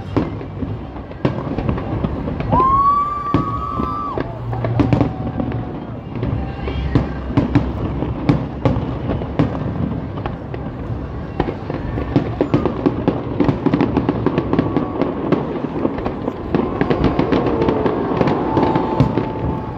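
Aerial fireworks bursting in quick succession: a rapid, irregular run of sharp bangs and crackles, with crowd chatter underneath.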